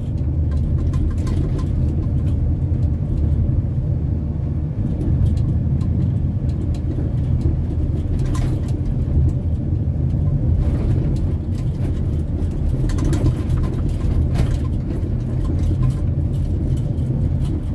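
Steady low engine and road rumble heard from inside the cabin of a moving car.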